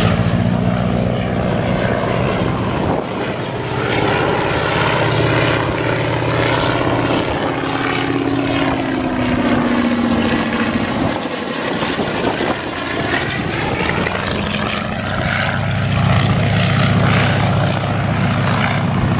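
PT-17 Stearman biplane's engine and propeller droning through aerobatic passes, the pitch sliding down as it goes by about halfway through, then swelling again near the end as it comes back low.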